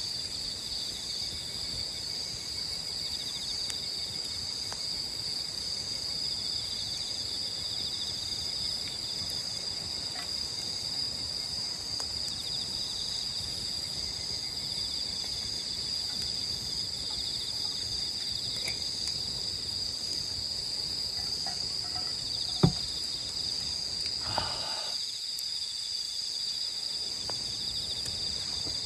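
Steady night chorus of crickets and other insects: a continuous high trill with a higher chirp pulsing at an even rhythm. A single sharp snap or click stands out late on.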